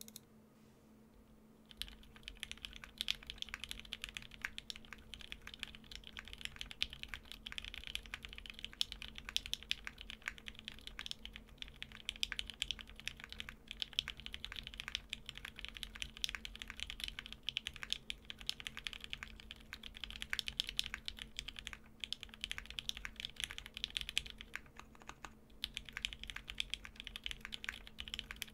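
Continuous fast typing on a plateless, undampened Klippe T custom mechanical keyboard with JWK Lilac linear switches and ePBT PBT keycaps: a dense stream of clacky keystrokes that starts about two seconds in, with a couple of short pauses near the end.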